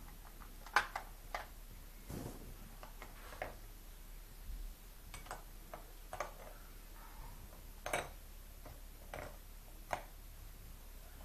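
Large plastic building blocks clicking and knocking together as a toddler handles them: about ten light, sharp clicks at irregular intervals, the loudest about a second in.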